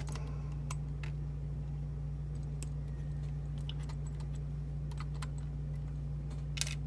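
Scattered light metallic clicks and taps from a padlock and key being handled, with a sharper click near the end, over a steady electrical hum.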